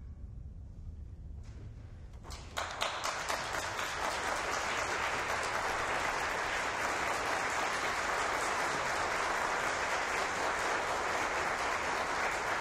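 Audience applause that breaks out about two seconds in, after a short hush at the end of a piano-and-bassoon piece, and then goes on steadily.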